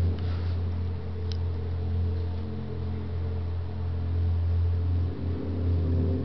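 Steady low droning hum from a television's speaker, the tense soundtrack under a film scene, with a faint click about a second in.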